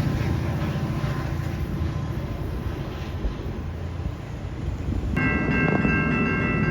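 A train rumbling past. About five seconds in, a steady chord of several tones from a train horn starts abruptly and holds.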